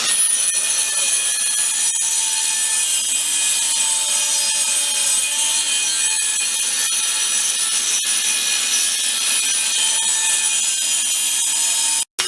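Power tool grinding or cutting steel: a steady high-pitched whine over a grating rasp, cutting off abruptly near the end.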